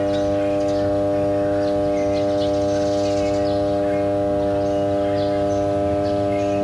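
Large oil-filled substation power transformer humming steadily, a hum made of several held tones at once. Birds chirp faintly over it.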